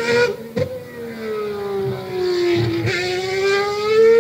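A car engine revving in outro music, its pitch sinking slowly, then climbing again after a sharp click about three seconds in. There is another click near the start.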